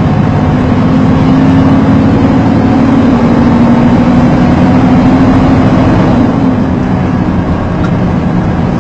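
Vehicle engine running steadily: a loud low drone with a steady hum, the hum dropping slightly in pitch about six seconds in.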